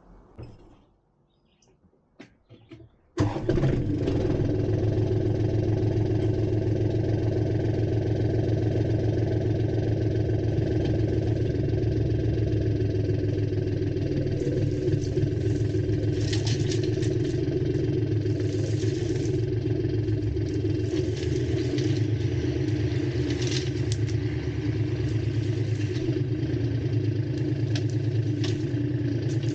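An engine starts about three seconds in and keeps running steadily, the engine of the vehicle pulling on the chains tied to the tree.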